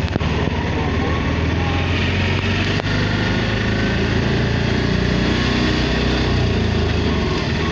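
A small vehicle engine running steadily, with street noise around it and a couple of brief clicks.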